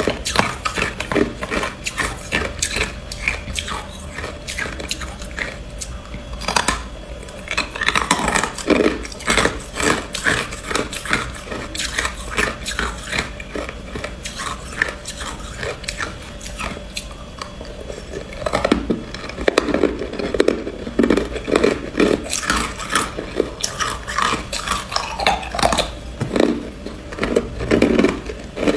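Ice being bitten and chewed close to the microphone: a dense run of sharp crunching cracks, growing louder and busier in bursts, with a heavy round of crunching about two-thirds of the way in.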